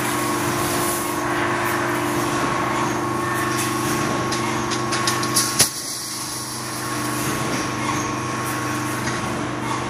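Automatic wire-mesh fence panel welding machine running, a steady mechanical hum. Several sharp metallic clacks come about five seconds in, the last the loudest, after which the noise briefly drops.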